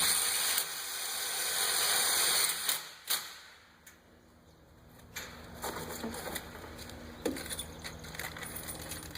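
Impact driver with a Phillips bit running a self-tapping screw into the gate's steel for about two and a half seconds, then stopping with a sharp click. A scatter of light clicks follows.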